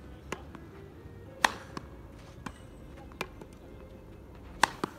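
Tennis ball struck with a racket during volley and overhead practice: a series of sharp pops, the loudest about a second and a half in and near the end, with fainter hits between.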